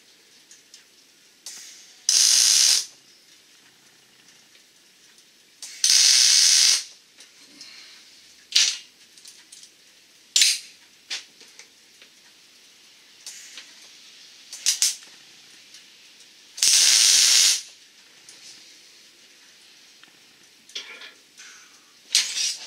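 Welder laying three short tack welds on a sheet-metal pan, each a loud hissing burst of about a second, with metal clicks and clanks from handling the parts in between.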